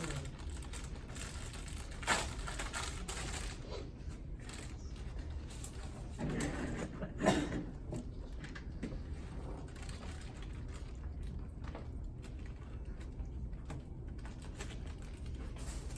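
Steady low room hum with scattered handling noises: small knocks and rustles, with a sharper knock about two seconds in and another around seven seconds in.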